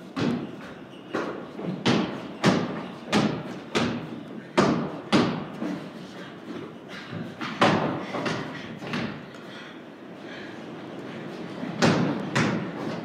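Basketball dribbled on a wooden plank floor, thudding about one and a half bounces a second in runs, each bounce ringing on in the large hollow loft; there is a quieter pause late on.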